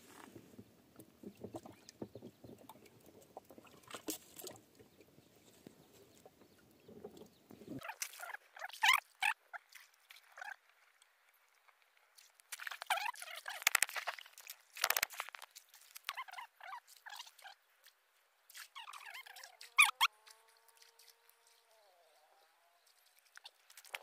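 Water splashing and sloshing in short, irregular bursts as a person wades and gropes with their hands in shallow river water. Near the end come a few drawn-out calls that rise and then fall.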